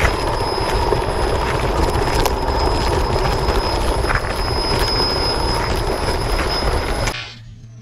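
XLF X03 brushless RC monster truck driving over rough dirt and stones, heard from a camera mounted on the truck: a dense, loud rattle and rumble of tyres, chassis and motor, with a steady high whine running through it. It cuts off abruptly about seven seconds in.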